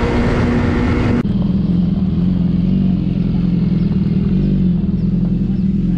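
Motorcycle riding at highway speed, engine note under heavy wind noise on the mic, cut off abruptly about a second in. What follows is a steady low motorcycle engine idle.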